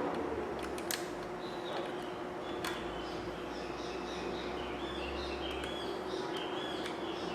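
A few light clicks of small parts being handled, over a steady hum, with birds chirping over and over in the background from about a second and a half in.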